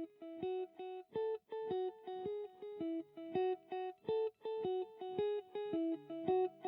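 Background music: a guitar picking a quick melody of single notes, about four a second.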